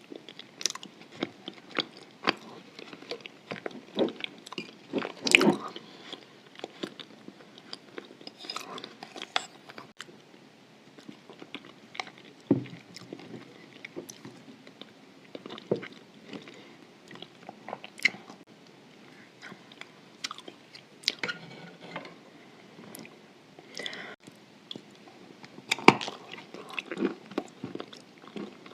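Close-up chewing of chalk mixed with white clay paste: irregular sharp crunches as the chalk is bitten, with softer wet chewing between them. The loudest crunches come about five seconds in and again near the end.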